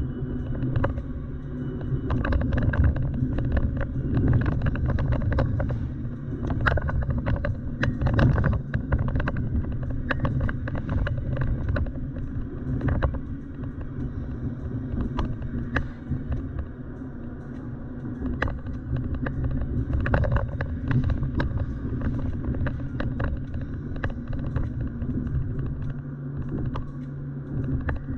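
Car driving along, a steady low rumble of engine and tyre noise with frequent short knocks and rattles from bumps in the road surface.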